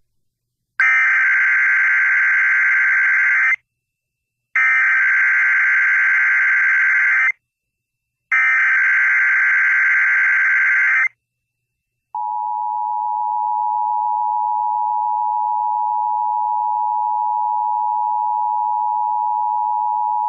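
Emergency Alert System SAME header: three identical bursts of rapid data tones, each nearly three seconds long and about a second apart. A steady two-tone attention signal follows, a chord of two close pitches held for about eight seconds, announcing an Amber Alert broadcast over FM radio.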